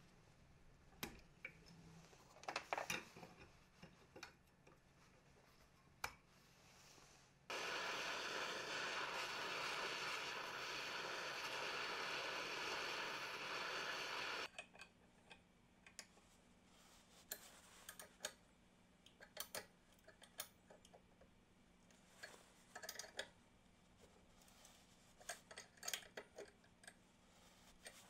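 A hand-held heating tool blows with a steady hiss for about seven seconds, aimed at the bearing on a drill armature shaft that sits in a bolt-and-plate bearing puller, heating it to loosen it. Before and after the hiss come scattered light metallic clicks and taps from tools handled on the puller.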